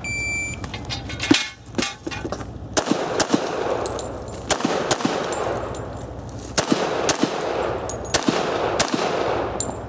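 A shot timer beeps once for about half a second, then a Springfield XD(M) 5.25 .45 ACP pistol fires about ten shots in quick pairs, roughly half a second between the two shots of each pair: double taps on the targets in a timed IDPA stage.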